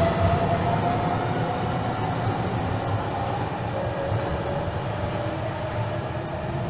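Double-deck electric passenger train moving away along the platform. Its running noise fades gradually under a steady motor whine that sags slightly in pitch.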